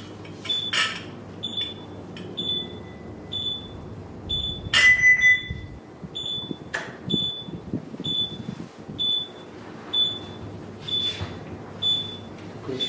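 Ship's bridge simulator console alarm beeping steadily, a short high beep about every three-quarters of a second. A few sharp clicks sound along with it, the loudest about five seconds in, followed by a brief lower tone.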